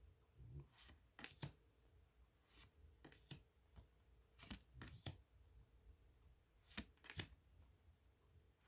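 Tarot cards being handled and laid down one after another: a series of faint, short slides and taps at irregular intervals, close to the microphone in a small room.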